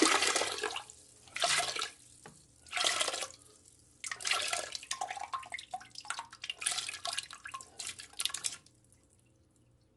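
Vomiting sound effect: liquid splashing into toilet water in four gushes, the last one long and spluttering, stopping a little before the end.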